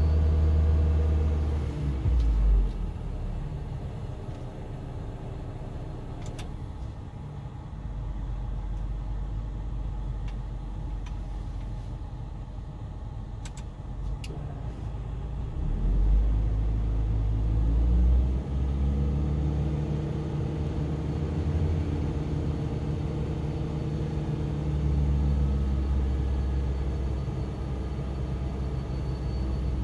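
Toyota Tercel running with the air conditioning on, a low hum whose level and pitch pattern shift several times and swell loudest for a couple of seconds around the middle. This is the car's abnormal air-conditioning noise being reproduced.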